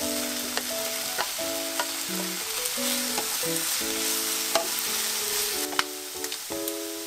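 Chicken and vegetables sizzling steadily in a frying pan as they are stir-fried, with a few sharp taps of the wooden spatula against the pan. A simple background melody plays underneath.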